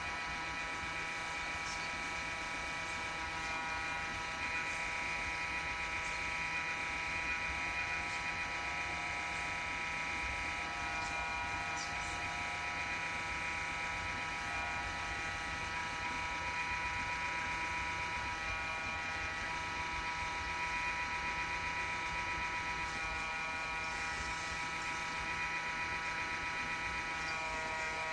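Cooling fan inside a Toshiba RD-BZ800 Blu-ray recorder running with a steady whine of several high tones over a low hum: the loud abnormal noise of the recorder's failing fan.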